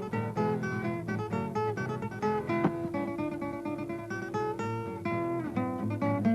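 Background music on plucked acoustic guitar, a brisk run of picked notes with one note held for a few seconds in the middle.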